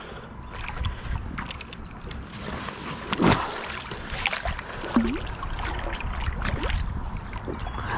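Water splashing and sloshing as a hooked blue catfish thrashes at the surface beside a kayak, with low wind rumble on the microphone. One short, louder sound comes about three seconds in.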